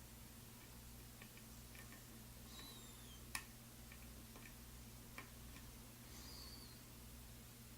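Faint, sharp clicks of a lock pick and tension tool working the pin stack of an Alfa (GeGe) oval pin-tumbler cylinder, with one louder click a little past three seconds, over a low steady hum.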